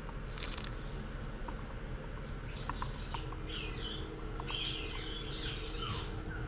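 Small birds chirping in the background, a run of short high chirps starting about two seconds in, over a steady low hum.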